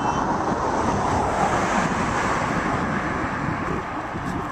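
A car driving past on the road, its tyres and engine rising to a rush about one to two seconds in and then fading as it moves away.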